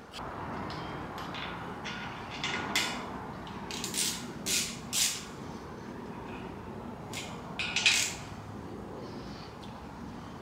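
Hand tools working bolts on the front of a bare LS V8 block: a series of short, sharp metallic clicks and clinks, about eight in all, irregularly spaced, the loudest near the end.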